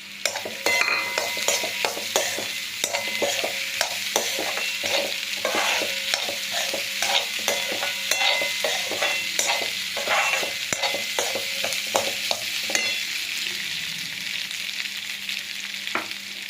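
Boiled potato pieces being stirred into hot oil with onions in a kadai: repeated scrapes and knocks of the stirring over a steady sizzle. The stirring stops about thirteen seconds in and the sizzle carries on.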